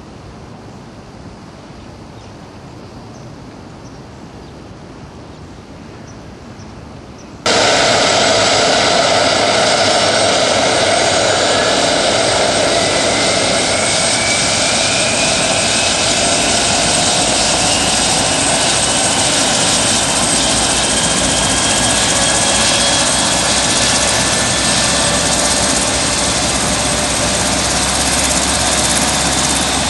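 Sikorsky S-64 AirCrane heavy-lift helicopter, its twin turbine engines and rotor running loud and close, with a steady high whine and tones that slowly slide up and down in pitch. The loud sound starts abruptly about seven seconds in; before that only a faint steady background noise.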